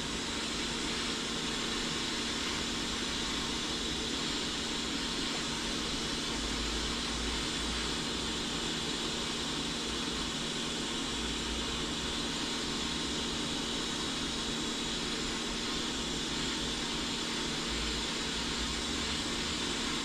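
Hot-air rework gun blowing steadily, a constant hiss with a low hum, while it heats the solder joints of a USB port until they let go.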